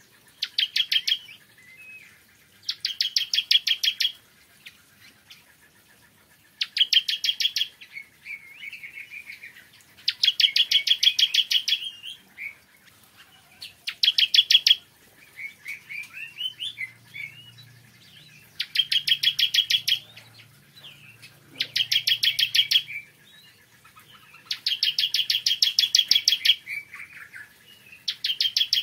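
Ciblek kristal (a prinia) singing. It gives about eight loud, rapid trills a few seconds apart, each one to two seconds long, with softer twittering notes between them.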